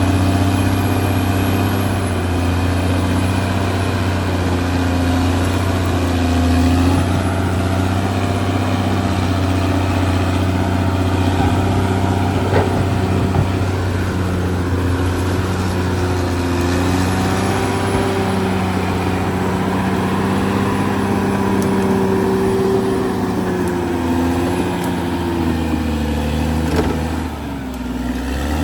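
Caterpillar D6R XL bulldozer's diesel engine running steadily at working speed. Its pitch and loudness dip briefly near the end, then pick up again.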